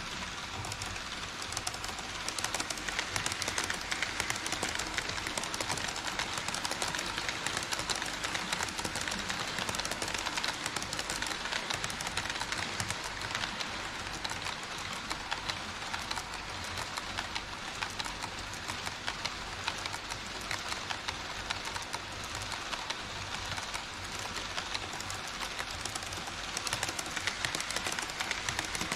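HO scale model trains running on KATO Unitrack, their metal wheels clicking and rattling steadily over the rails. The rattle grows louder about a second and a half in as a long train passes close.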